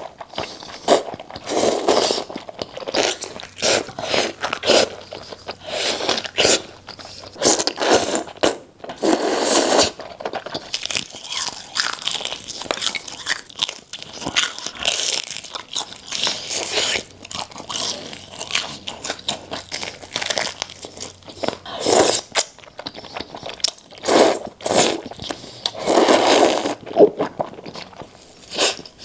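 Close-miked eating sounds: irregular crunching bites and chewing, one after another.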